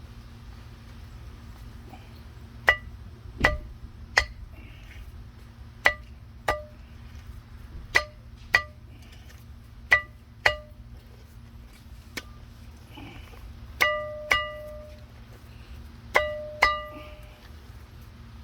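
Sharp metal-on-metal taps with a brief ringing note, mostly in pairs about half a second apart and repeated every couple of seconds, as the old rear grease seal is worked out of a trailer wheel hub drum with a tool. A steady low hum runs underneath.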